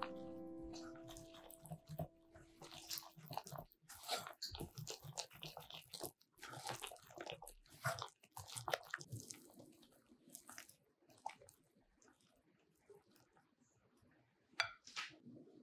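A silicone-coated whisk stirring cake flour into egg yolks, oil and milk in a glass bowl: faint, irregular scraping and wet, sticky squelches as the batter thickens, growing sparser after about ten seconds. A guitar note dies away at the start, and there is one sharp tap near the end.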